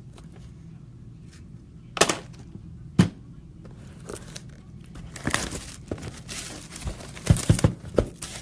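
Plastic wrapping on a box of trading cards crinkling and tearing as it is opened, with sharp knocks about two and three seconds in and a busy stretch of crackling and tearing near the end.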